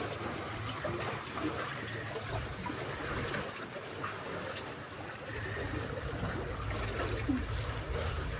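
Seawater sloshing and trickling among concrete tetrapods, with small scattered clicks and wind rumbling on the microphone at times.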